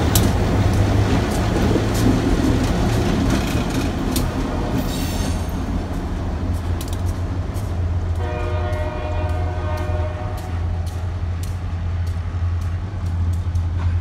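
EMD GP11 helper diesel locomotives passing and pulling away, with a steady low engine rumble and wheels clicking over rail joints. A brief high squeal comes about five seconds in, and a locomotive horn sounds one blast of about two and a half seconds about eight seconds in.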